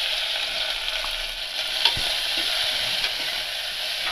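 Chopped onions sizzling in hot oil in an aluminium pressure cooker while a metal ladle stirs them, with one sharp knock about two seconds in.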